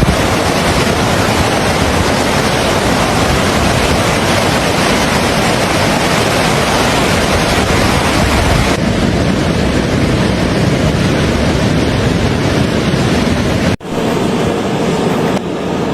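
Loud, steady rush of fast-flowing floodwater. Its sound turns duller about nine seconds in and breaks off for a moment near the end.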